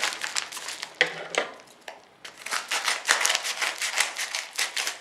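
Padded paper mailer envelope being handled and opened: crinkling paper, a short lull just before two seconds in, then a longer run of dense, rapid crackling.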